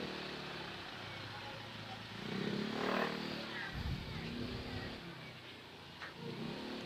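Motorcycle engine running at low speed in slow, close street traffic, with other vehicles' engines nearby. It grows louder for a moment around three seconds in.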